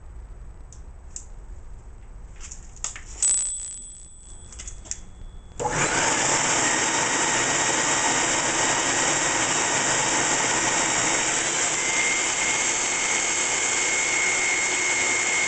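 Vacuum motor driving a vacuum-forming table, switched on about five and a half seconds in and then running steadily with a faint high whine that gets stronger about twelve seconds in. Before it, a few light clicks and a short ringing tone.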